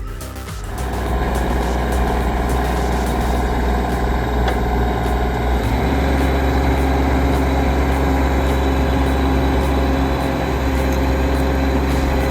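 Toro Dingo compact utility loader's engine running steadily under load while driving an SC400 stump grinder attachment.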